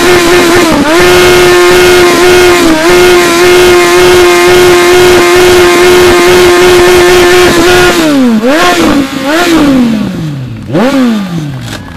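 Motorcycle engine held at a steady, very loud high rev through a chrome aftermarket silencer, dipping briefly twice. About eight seconds in the throttle is let off and blipped a few times, the revs falling away between blips.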